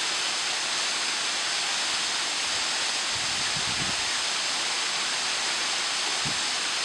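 Waterfall pouring into a pool: a steady, even rushing hiss, with a couple of brief low bumps partway through.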